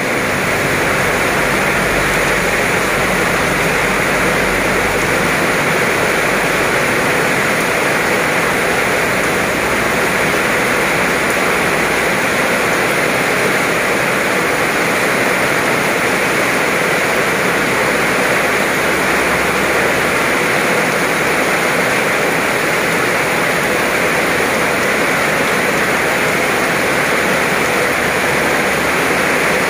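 Heavy tropical rain pouring down in a steady, dense hiss, drumming on the ground and the wet road.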